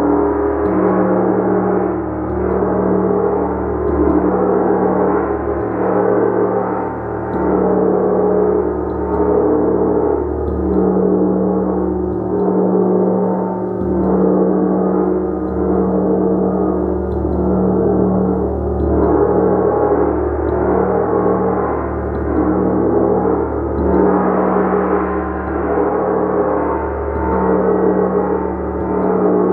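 Gong played continuously with a mallet, a dense wash of sustained overlapping overtones whose loudness swells and eases every second or two.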